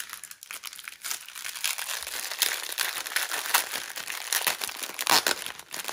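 Clear plastic bag crinkling and crackling as hands open it and handle the wrapped packets of diamond-painting drills inside, in quick irregular crackles.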